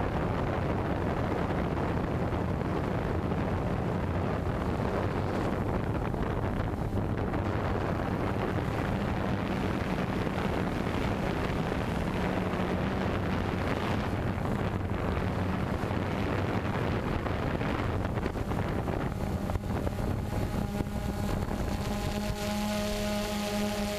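Multirotor camera drone's propellers buzzing steadily, with rushing wind noise on the microphone. Near the end a higher whine of several tones joins in.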